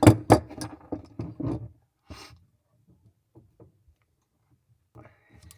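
Pliers working the stem of a compression shut-off valve loose: a quick run of sharp clicks and knocks for about a second and a half, a short rasp a little after two seconds, then only a few faint ticks.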